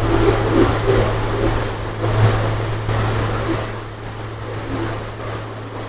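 Steady low hum under an even hiss of background room noise.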